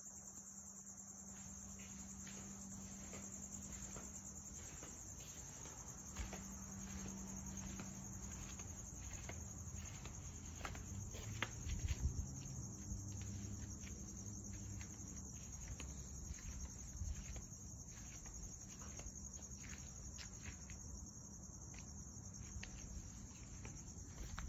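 Crickets chirping steadily at night, with scattered footsteps and a faint low hum underneath.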